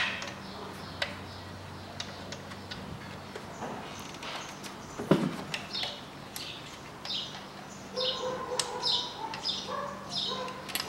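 A bird chirping in short repeated calls, under two a second, from about halfway on. Under it are a few sharp metallic clicks and one knock about five seconds in, from hand tools as a throttle body is bolted back onto the engine's intake manifold.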